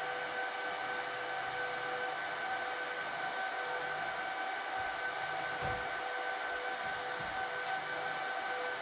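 Cooling fans of an HP ProLiant DL360p Gen8 1U server running steadily, an even whoosh with a constant whine, while the server works through its long memory check at boot.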